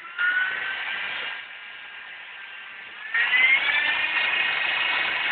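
Handheld electric power tool working an aluminum wheel. Its motor whine spins up with a rising pitch just after the start, eases to a lower level after about a second, then spins up again, rising in pitch, about three seconds in.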